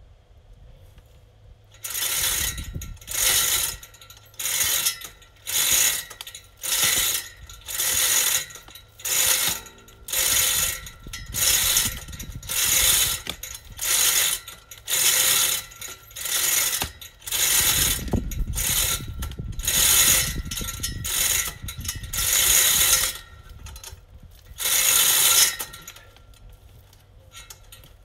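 Manual chain hoist (palan) being hauled by hand, its chain rattling through the block in about twenty regular pulls, roughly one a second, lifting a hydrangea root stump out of the ground. The pulls start about two seconds in and stop a couple of seconds before the end.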